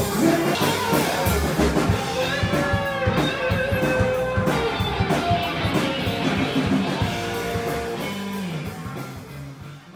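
Blues music: electric guitar playing bending lead lines over a drum kit, fading out near the end.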